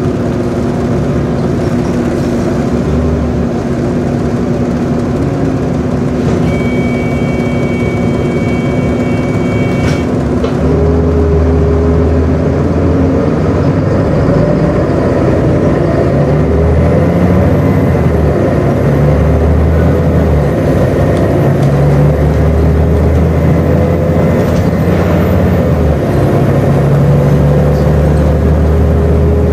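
Volvo B7LA Wright StreetCar articulated bus heard from inside the saloon while under way: its diesel engine runs with a drone that rises and falls in pitch as the bus pulls and changes speed, and gets heavier in the low end from about a third of the way in. A steady high tone sounds for about three seconds early on.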